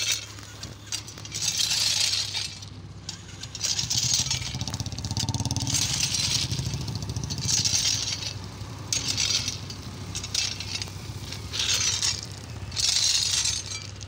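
Footsteps crunching on loose soil and gravel, recurring every second or two, over the steady hum of a running engine that swells for a few seconds around the middle.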